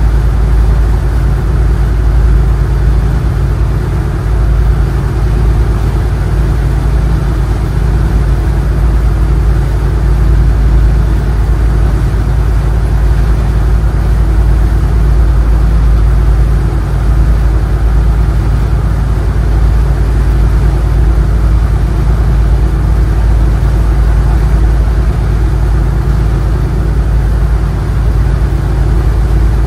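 Power boat engine idling steadily, an even, unchanging low drone.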